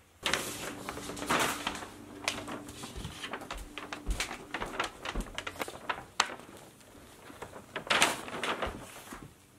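Handling noise as the camera is picked up and moved over a paper map: irregular clicks, knocks and scrapes against the microphone, with bursts of rustling.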